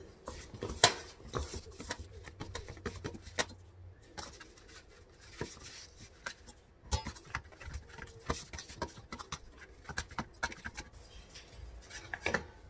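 Hand mixing and kneading stiff maida dough in a stainless steel bowl: irregular soft taps, clicks and scrapes of fingers and dough against the metal.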